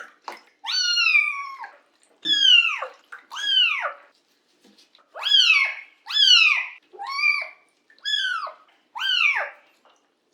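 A young rescued kitten meowing repeatedly during its first bath, about eight high-pitched cries roughly a second apart, each falling in pitch.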